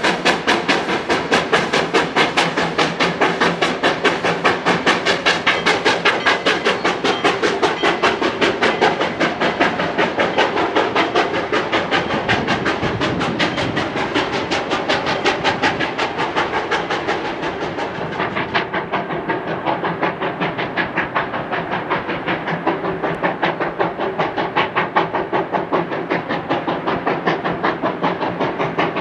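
Exhaust of Georgetown Loop narrow-gauge steam locomotive No. 40 chuffing in a quick, even beat, several chuffs a second, as it works a train along the line. The chuffs sound a little duller after about two-thirds of the way through.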